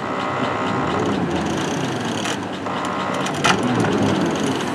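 Chevrolet Z71 pickup's engine running while it holds a boat trailer backed into the water on a ramp, with two sharp knocks, the louder about three and a half seconds in.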